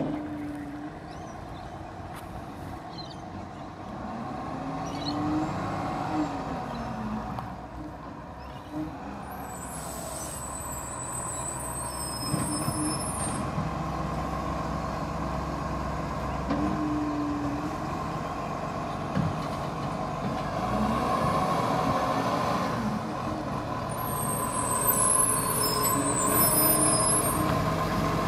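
Iveco garbage truck's diesel engine running and revving up and down as it moves between stops, growing louder as it draws near. Sharp air hisses come twice, about ten seconds in and again near the end, typical of the truck's air brakes releasing.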